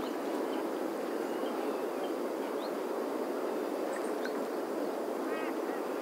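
A common pheasant calling once, briefly, about five seconds in, over steady background noise, with a few faint chirps from small birds.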